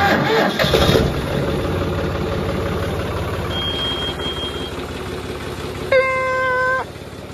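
John Deere 5405 tractor's three-cylinder diesel engine just started from cold, loud and rough for the first second, then settling into a steady idle to warm up. About six seconds in, a short single-pitched horn beep.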